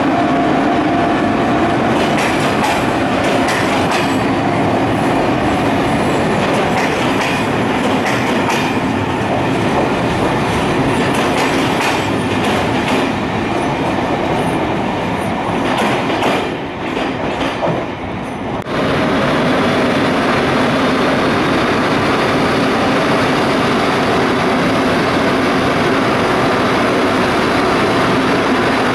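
Passenger coaches rolling out of the station, their wheels clicking over rail joints with some wheel squeal. About two-thirds of the way in it changes abruptly to a steady, even running noise beside a standing electric locomotive hauling freight wagons.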